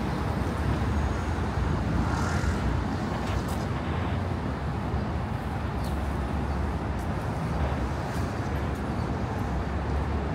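Steady city street traffic noise: a continuous low rumble of engines and tyres, with a few faint ticks.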